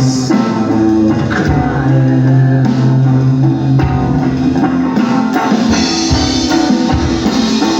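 Rock band playing live: electric guitar over sustained bass notes and a drum kit.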